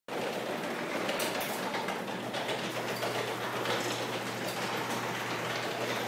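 Sectional garage door with a broken spring being pulled shut by hand, its rollers rattling steadily along the tracks.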